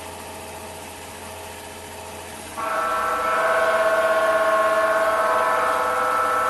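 A small 775 DC motor cross drill running, then about two and a half seconds in the bit bites into the steel and a much louder, steady pitched whine sets in as it cuts. The steel is hard going for the bit.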